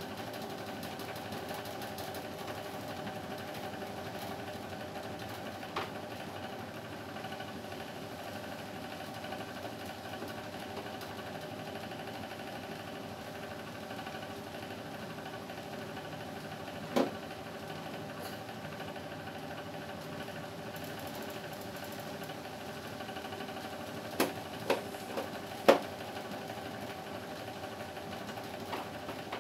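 Wall-mounted split air conditioner indoor unit running with a steady hum. A few sharp plastic clicks as the louver vane is handled: one about halfway through, then a quick cluster near the end, the loudest of all.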